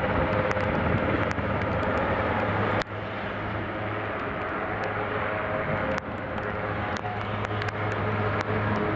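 Swiss Air Force AS532 Cougar helicopter ground-taxiing, its twin turboshaft engines and main rotor running with a steady hum and whine. The level drops suddenly about three seconds in.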